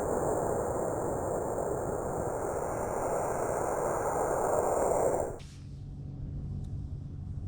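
Steady rushing wind noise on a microphone that cuts off abruptly about five seconds in. A faint, low, steady hum remains after it.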